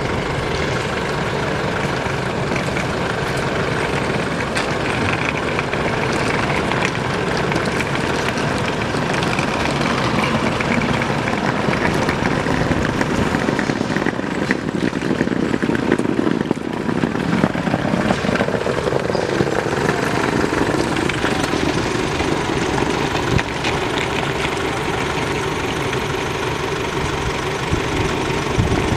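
A vehicle engine idling steadily with a rough, knocking rattle.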